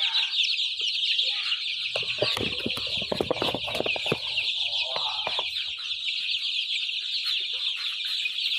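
A brood of young chicks peeping constantly, a dense chorus of many short, high chirps overlapping each other. About two seconds in, a couple of seconds of knocking and rustling sounds under the peeping.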